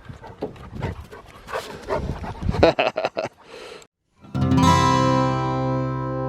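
Dog making short whines and snuffling, scuffling sounds for about four seconds; then, after a brief silence, acoustic guitar music starts.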